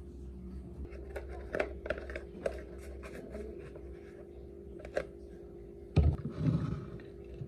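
Light clicks and scratchy handling sounds from a paper UHT milk carton being closed, then a dull thump about six seconds in with a brief rustle after it, over a faint steady hum.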